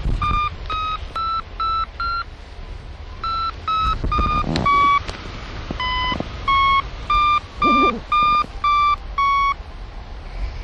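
Hang-gliding variometer beeping its climb tone: runs of short, evenly spaced beeps, about three a second, their pitch shifting a little up and down, with two short pauses. The beeps signal that the glider is climbing. Steady wind noise on the microphone underneath.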